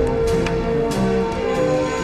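Dramatic score music with sustained, held notes.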